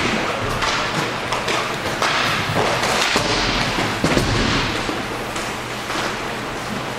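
Inline hockey play: irregular sharp knocks and thuds of sticks, puck and boards over a steady rink background.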